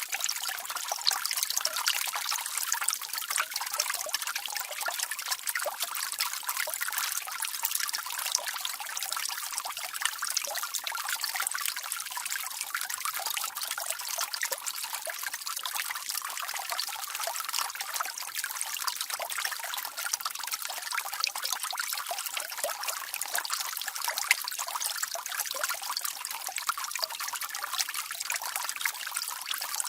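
Water jet from a hose running steadily: a continuous splashing hiss, mostly high, with little low rumble.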